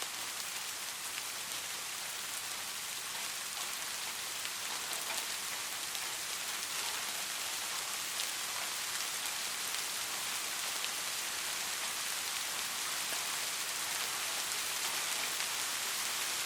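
Steady rain falling, a dense even hiss with light scattered raindrop ticks.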